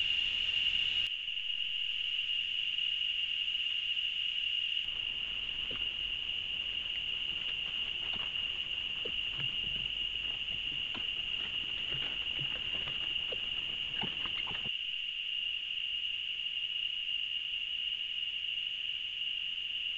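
A steady, high-pitched insect drone from the forest. From about five seconds in until near fifteen it is joined by scattered rustles and ticks in the dry leaf litter as white-nosed coatis forage across the ground.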